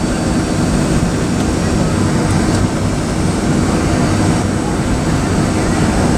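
Steady cabin noise inside a Boeing 757-200 on the ground: an even engine and airflow rumble with no sudden events.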